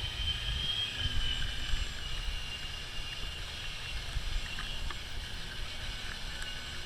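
Thin, wavering high whine of a radio-controlled model plane's motor and propeller flying far off, over low gusty wind rumble on the microphone.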